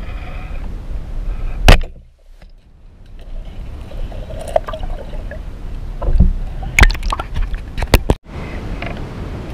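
Underwater sound picked up by a diver's camera: a steady low rumble of moving water with scattered clicks and knocks, the loudest a sharp knock about two seconds in, and a cluster of clicks near the end.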